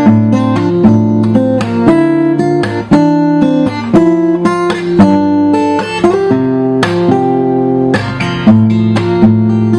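Samick acoustic guitar played with strummed chords, the notes ringing on between strokes and the chord changing every second or so.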